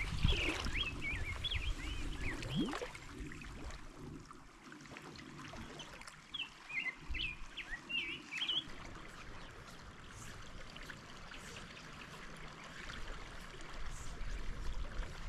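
River water flowing steadily, with a songbird singing quick warbled phrases twice: at the start and again about six seconds in.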